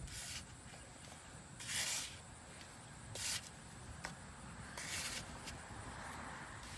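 Sand being scooped and poured in a sandbox: four short, gritty swishes about one and a half seconds apart.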